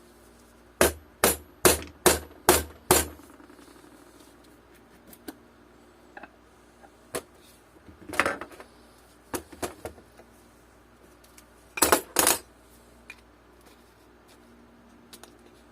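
Small metal bike hardware (nuts, washers and a threaded axle shaft) clinking and knocking as it is handled: a run of six sharp strikes about a second in, then scattered clinks.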